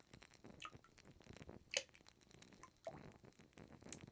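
Faint scattered drips and small splashes of water, with one sharper drip a little under two seconds in.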